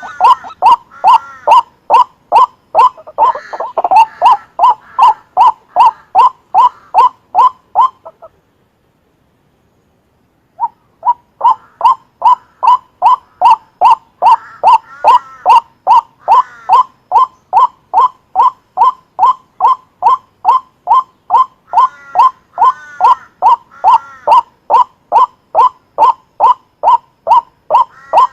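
White-breasted waterhen calling: a loud, monotonous run of the same short note, about two to three a second, with other curving calls overlapping now and then. The calling cuts off completely for about two seconds a third of the way in, then resumes at the same pace.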